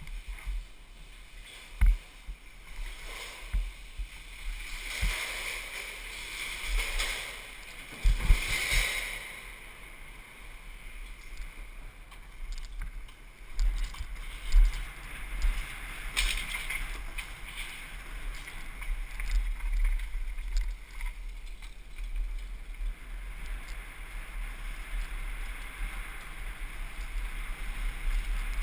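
Wind buffeting a helmet camera's microphone as a downhill mountain bike rides fast down stone stairs and over cobblestones, with the bike rattling and sharp knocks from the steps and bumps, the loudest about 2 and 8 seconds in.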